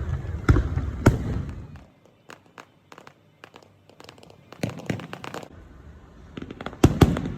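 Firecrackers bursting: sharp bangs in the first second, a lull with faint crackles, a quick run of crackling at about five seconds, then loud bangs near the end.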